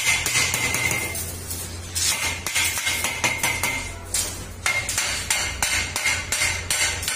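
Repeated metal-on-metal taps and clinks of a hand hammer striking a steel square-tube bed frame, several knocks a second with short pauses.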